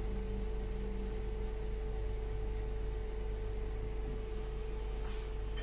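Steady low hum with a faint constant tone above it, unchanging throughout; no distinct stirring or sizzling stands out.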